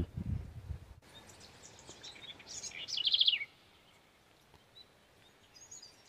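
House wren (curruíra) singing: one short song of quick high notes lasting about two seconds, ending in a fast trill, with a faint high chirp near the end.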